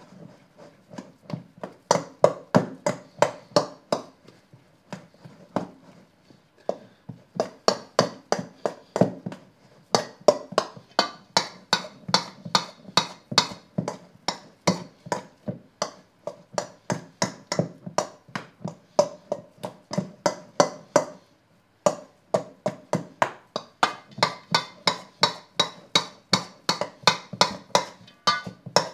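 Spoon knocking and scraping against a stainless steel mixing bowl while stirring a wet dough: quick, rhythmic knocks, a few a second, with two short pauses, one several seconds in and one about three-quarters of the way through.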